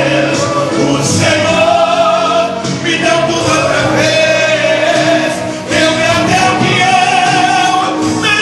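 Gospel song performed live: a male singer holds long, slightly wavering notes over a band accompaniment.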